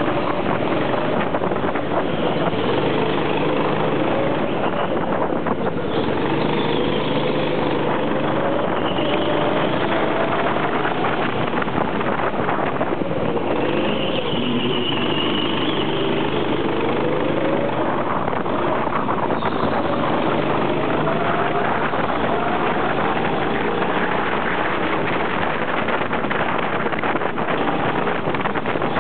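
Go-kart engine running under way, its pitch repeatedly rising and falling as it speeds up and eases off, inside an enclosed concrete parking garage.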